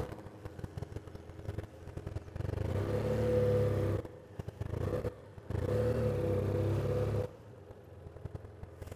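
BMW GS motorcycle engine running at low revs as the bike rolls slowly. It gets louder twice under throttle, from about two to four seconds in and from about five and a half to seven seconds in, and falls back to a quieter idle between and after.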